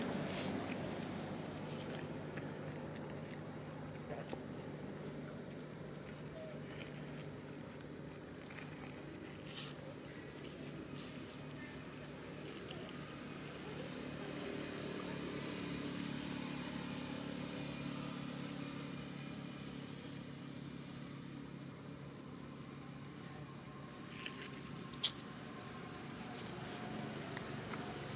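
Steady high-pitched drone of insects over a low steady hum, with a few faint clicks and a sharper click near the end.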